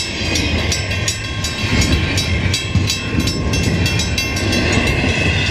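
Level-crossing warning bell ringing rapidly and steadily, about three strikes a second, over a low rumble.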